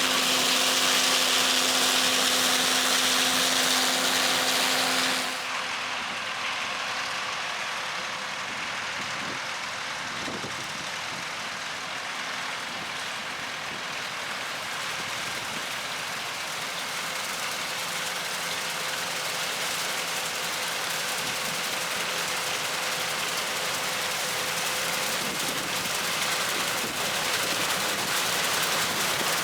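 John Deere combine running steadily while harvesting soybeans, heard from inside the cab: a constant mechanical hum with a steady tone. About five seconds in it suddenly drops quieter and loses its high hiss, then runs on evenly.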